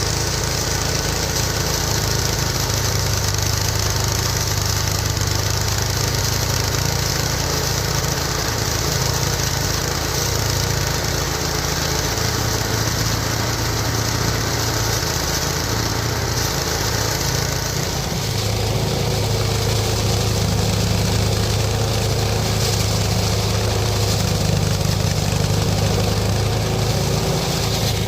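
Mini rice threshing machine running steadily on its small engine, a continuous low hum under a hissing drone. Well into the run the hiss eases and the low hum strengthens.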